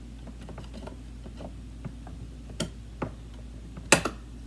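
A few scattered light clicks and knocks of kitchen utensils and containers being handled, the loudest a sharp double click about four seconds in.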